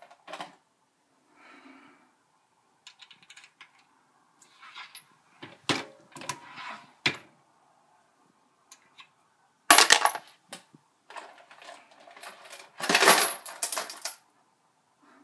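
Brass pistol cartridge cases clinking and rattling against metal while being handled at a reloading press during case sizing: scattered sharp clicks, with louder bursts of clatter about ten seconds in and again around thirteen seconds.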